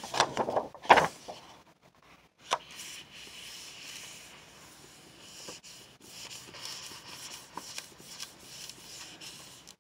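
Sheet of paper being handled and laid onto a paint-covered gel printing plate, then rubbed down by hand to lift the print. A few sharp knocks and paper crackles in the first second, the loudest about a second in, then a soft, steady rubbing of palm on paper.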